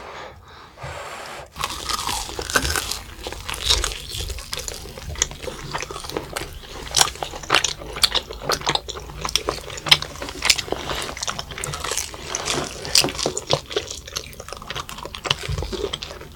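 Close-miked biting and chewing of fried cream cheese balls, their crust crunching in many quick, crisp bites. The bites start about a second and a half in.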